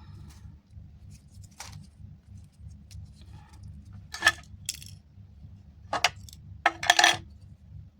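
Small hard objects clinking and clicking on a workbench during an earbud repair: five or six short sharp clinks with a brief ring, the loudest near the end, over a steady low hum.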